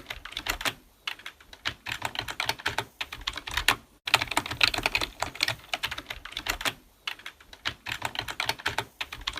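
Typing on a computer keyboard: quick runs of keystroke clicks broken by a few short pauses.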